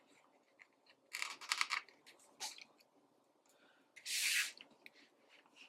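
Planner stickers being peeled from their sheet and handled over paper: a cluster of crackly clicks about a second in, then a short tearing rasp about four seconds in.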